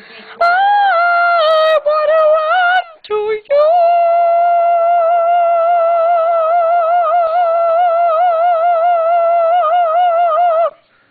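A woman singing loudly: a few short sung phrases, then one long high note with a wide, even vibrato held about seven seconds before it breaks off.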